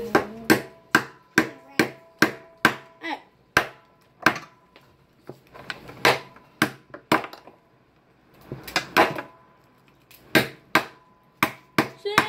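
Crab shells being cracked and snapped open by hand: a run of sharp cracks, two or three a second, broken by a couple of short pauses.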